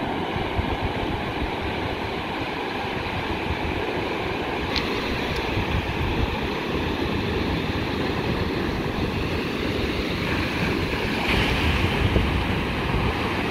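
Ocean surf breaking and washing up a sandy beach in a steady rush, with wind buffeting the microphone. It grows a little louder near the end as a wave breaks.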